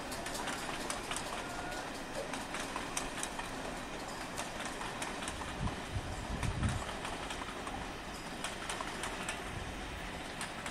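Steam-hauled passenger train running along the line: a steady rumble with frequent light clicks, and a brief low swell about six seconds in.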